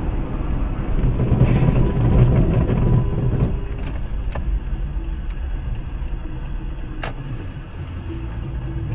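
Car on the move: a steady low rumble of engine and road noise, heavier for the first few seconds and then easing off, with a single sharp click about seven seconds in.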